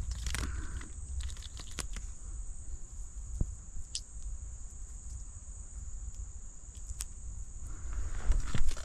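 Insects keep up a steady, high-pitched chirring over a low rumble, with a few scattered sharp clicks. A louder rustle of handling comes near the end.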